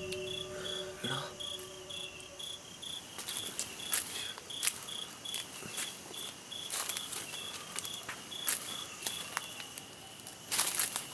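Crickets chirping in a steady pulsing rhythm, about two or three chirps a second, with scattered sharp rustles and snaps of movement through undergrowth.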